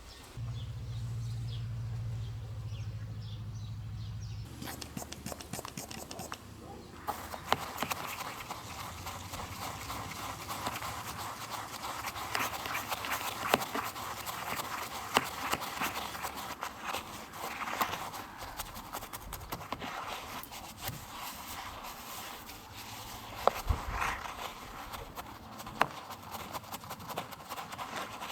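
Brush scrubbing on a muddy RC car: rapid scratching with scattered sharp clicks and knocks as the car is handled. A low hum sounds for the first few seconds before the scrubbing starts.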